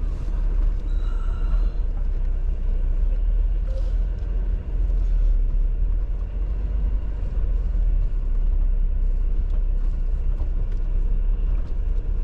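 Jeep rumbling at crawling speed over a rocky trail, a steady low drone of engine and drivetrain heard from inside the cab, with a brief squeak about a second in.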